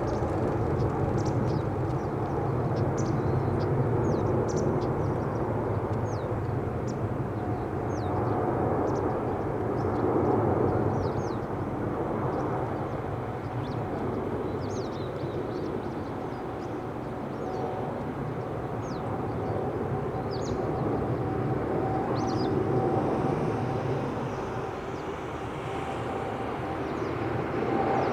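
Jet aircraft engines running steadily, a low hum with a thin steady whine. Small birds give short high chirps about once a second over it.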